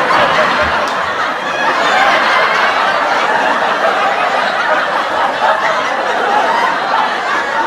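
Sitcom laugh track: a studio audience laughing together in a steady, sustained wash of many voices.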